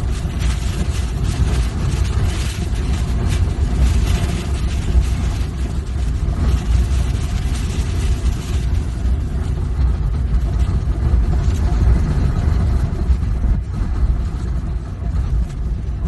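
Typhoon wind and driving rain, heard as a loud, steady rush with a heavy low rumble from the gusts buffeting the phone's microphone.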